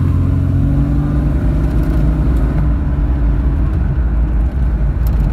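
1999 Ford Explorer's engine and drivetrain running under way, a steady low drone heard from inside the cabin, with road noise.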